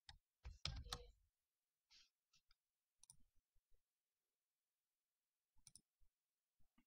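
Near silence: room tone with a few faint clicks. The most noticeable cluster comes about half a second to a second in.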